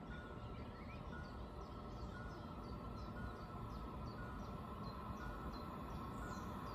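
Faint steady outdoor background noise, with a small bird repeating a short, high, downward-sliding chirp a few times a second.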